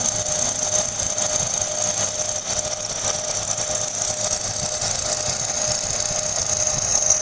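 Machinery running steadily: a constant hissing noise with a high, steady whine over it.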